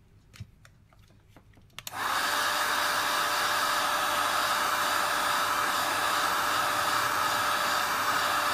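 Hot air gun switched on about two seconds in and blowing steadily: a loud, even rush of air with a faint steady tone in it. Light handling clicks come before it.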